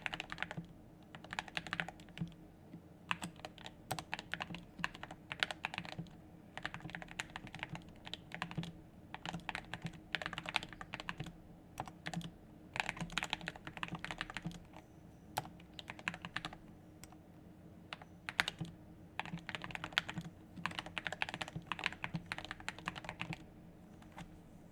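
Typing on an SK61 mechanical keyboard with Gateron Black linear switches lubed with Glorious G-Lube: runs of quick keystrokes broken by short pauses, over a faint steady hum.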